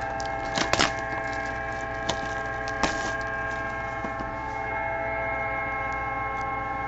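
A few sharp clicks and snaps in the first three seconds as a trading-card box is handled and opened, over a steady drone of several held tones.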